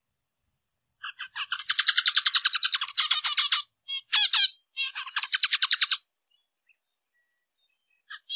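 Zebra finch singing: two long runs of rapid, buzzy, repeated notes, beginning about a second in and ending about six seconds in, with a few short separate notes between them.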